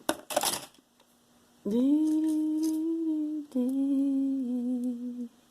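A woman humming two long notes, the second slightly lower and stepping down near its end, after a brief rustle of handling at the start.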